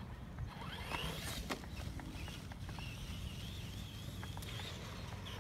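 Whine of a 1/12-scale Ingqu SL-119A RC monster truck's small 390 brushed motor as the truck drives off, its high pitch wavering with the throttle from about a second in, with a few sharp clicks early on over a steady low rumble.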